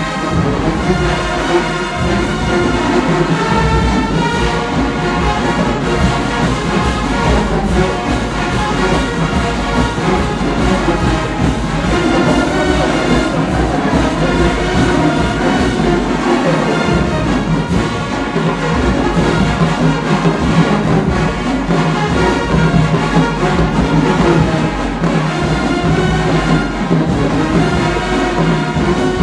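Marching band playing continuously and loudly, with the brass section carrying the music.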